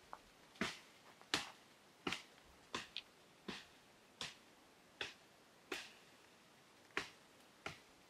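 A blade chopping at tree branches to cut goat fodder: about a dozen sharp, evenly spaced strikes on wood, roughly one every two-thirds of a second.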